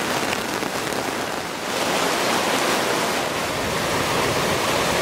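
Heavy rain pouring down onto water, a dense steady hiss that grows a little louder about two seconds in.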